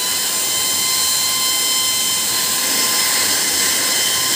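Small high-speed 12-volt DC cooling fan running at full speed: a steady high-pitched whine with several overtones over a rush of air.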